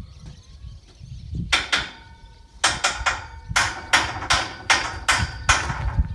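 Hammer blows on a steel scaffold frame: about a dozen sharp metallic strikes with a brief ring, coming in quick groups from about one and a half seconds in.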